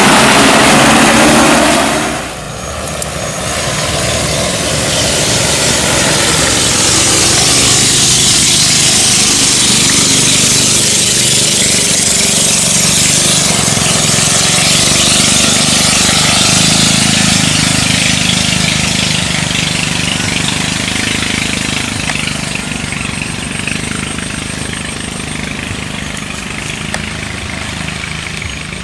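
Six-rotor agricultural spraying drone with a 20-litre tank flying low, its rotors making a loud, steady drone. The sound dips sharply about two seconds in, swells back over the next few seconds, and slowly fades toward the end as the drone moves off.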